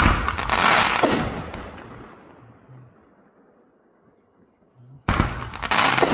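Two fireworks bursts about five seconds apart, each a sudden bang followed by a dense crackle that dies away over a second or two.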